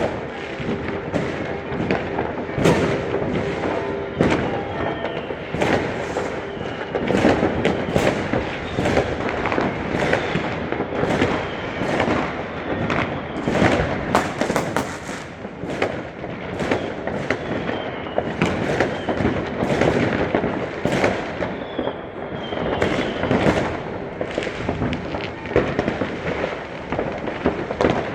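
Fireworks and firecrackers going off without a break: dense, overlapping bangs and crackling.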